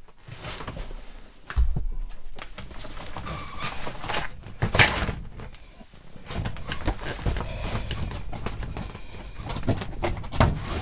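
Close handling noise: clothing rustling against the microphone, with a few knocks and thumps, the loudest about halfway through.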